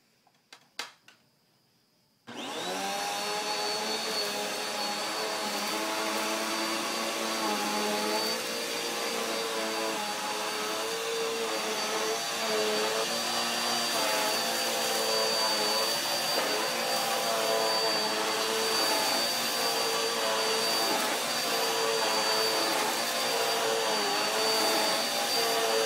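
Red Dirt Devil bagless upright vacuum cleaner starting up suddenly about two seconds in, after a couple of faint clicks. It then runs steadily while pushed back and forth over carpet, with a high steady whine and a motor pitch that wavers slightly as it moves.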